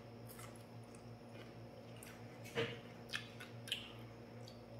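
A person chewing a soft bakwan vegetable fritter: faint, wet mouth sounds with a few short smacks, the clearest a little over halfway through. The fritter is soft, not crunchy, so there is no crunching.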